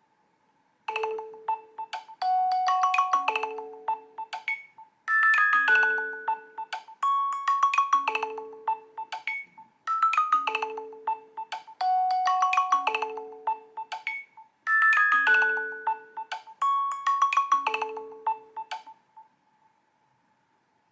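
An iPhone iOS 17 ringtone playing: a short bright melody repeated four times, about five seconds per repeat, that stops shortly before the end.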